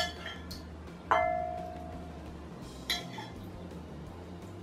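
A metal spoon clinking against glassware three times; the second strike, about a second in, rings on briefly with a clear tone.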